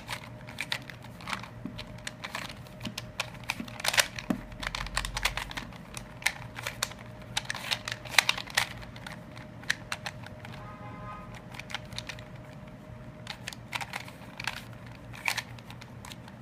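Rubik's Cube layers being twisted by hand: irregular plastic clicking and clacking, with a lull around ten to thirteen seconds in.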